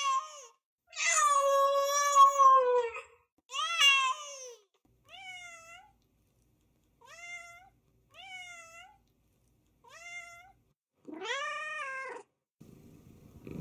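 Domestic cat meowing over and over, about eight calls. A long, drawn-out meow comes about a second in, then several softer, shorter meows, then a louder one near the end. A low purr begins just before the end.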